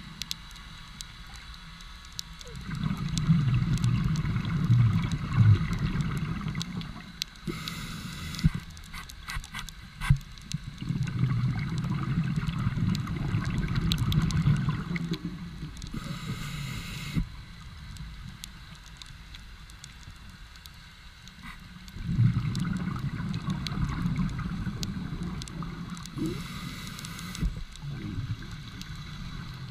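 Scuba diver breathing through a regulator underwater: three long bubbling exhalations of about four seconds each, each followed by a short hiss of inhalation.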